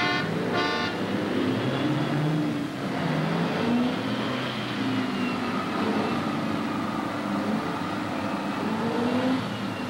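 Two short horn blasts, then a Lectra Haul diesel-electric mine haul truck running steadily. The engine's pitch rises and falls slightly, with a faint higher whine over it.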